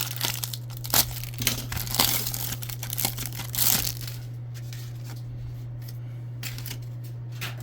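Foil trading-card pack wrapper being torn open and crinkled, with the cards rustling as they are handled. The tearing and crackling are busiest in the first few seconds, then die down to lighter handling.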